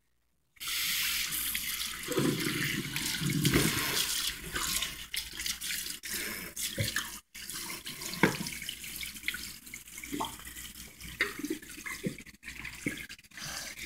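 Tap water running into a sink and splashing over a small dog's wet coat as a hand rinses her, with scattered splashes.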